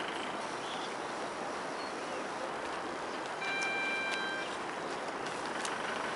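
Steady outdoor rushing noise, with a vehicle horn sounding once for about a second midway.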